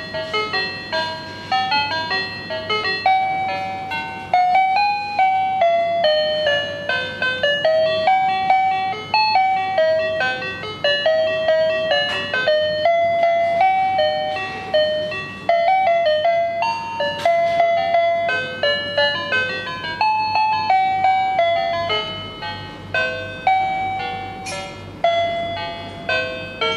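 Electronic melody playing from a children's toy mobile phone: a simple jingle of short, quick notes.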